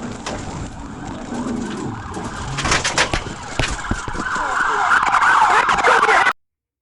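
Police car siren sounding, loud and wavering, after a few sharp clicks and knocks. The sound cuts off abruptly near the end.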